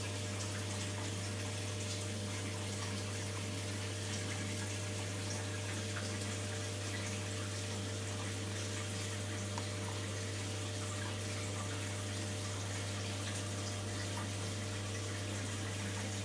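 Reef aquarium pump and water circulation running: a steady low hum with a constant hiss of moving water and faint crackles.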